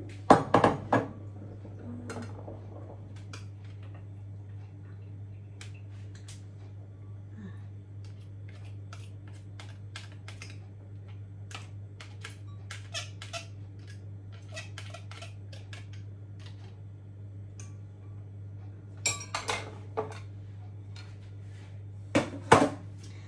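Kitchenware handling: a utensil taps and scrapes against a plastic colander and a bowl as drained noodles are scraped out, giving a long run of light clicks and taps. Louder clunks come from bowls being set down on the counter near the start and twice near the end, over a steady low hum.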